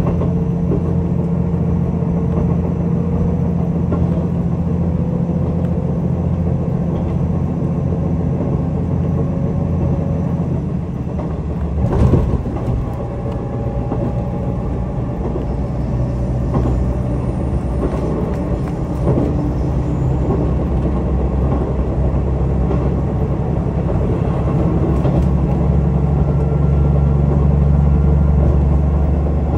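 KiHa 185 series diesel railcar under way: a steady low drone from the diesel engine and running gear, with a single sharp knock about twelve seconds in. The low engine note grows stronger near the end.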